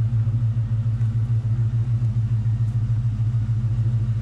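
2004 Ford Mustang Mach 1's 4.6-litre four-valve V8 idling steadily with an even low exhaust pulse.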